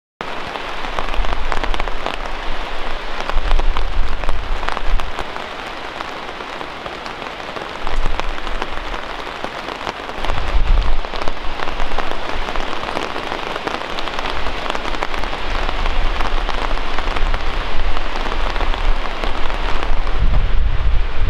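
Heavy rain falling and pattering steadily, with surges of low rumble now and then.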